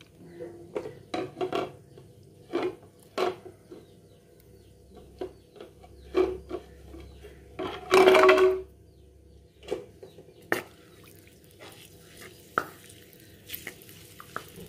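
A spatula knocking and scraping against a clay pot while stirring garlic in hot oil: scattered clicks and short scrapes, the longest and loudest scrape about eight seconds in.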